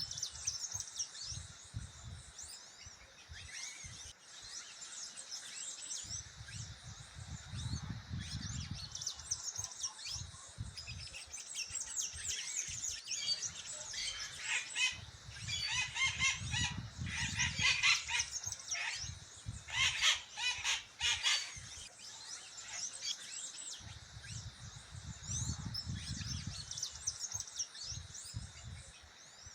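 A chorus of wild birds chirping and singing, many short high calls overlapping, with a louder run of rapid, repeated calls in the middle. Low rumbles come and go several times.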